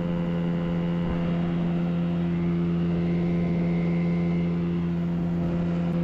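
Outboard motor driving a small aluminium boat along at a steady speed: an even, unchanging engine drone.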